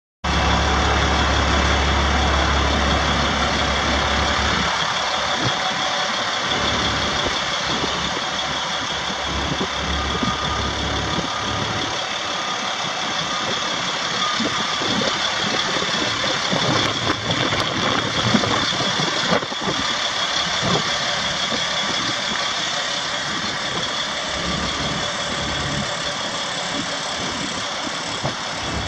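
Caterpillar 3126 inline-six turbo diesel of a Sterling LT7500 dump truck idling steadily, with a constant high-pitched whine over it.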